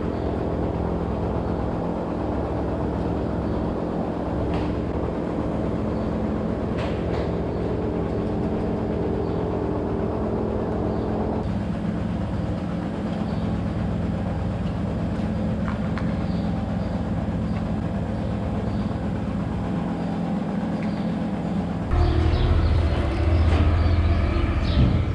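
Steady mechanical hum of milking-parlor machinery, with a few faint clicks and knocks; its tone shifts about halfway through. Near the end it gives way to a louder, lower rumble.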